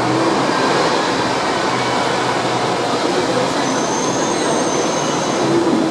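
Hong Kong electric tram running along its street track, heard from on board as a steady rolling rumble of wheels on rail. A faint high wheel squeal comes in briefly about four seconds in.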